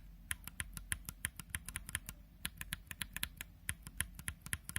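Unlubed tactile mechanical keyboard switches, Holy Panda stems in a Zealio v2 housing and in a Holy Panda housing, pressed over and over: a quick clatter of sharp clicks, about six a second, with a short pause about two seconds in.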